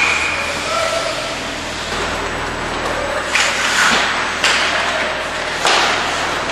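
Ice hockey game noise in a rink: a steady wash of skating and play sounds with four sharp knocks, the second half of it about a second apart.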